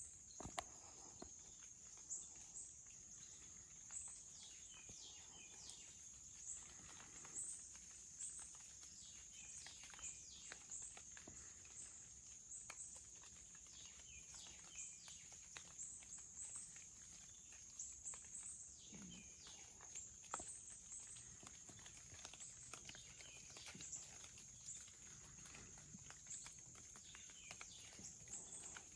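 Faint outdoor ambience: a steady high-pitched insect drone, with scattered short falling chirps and light clicks and rustles.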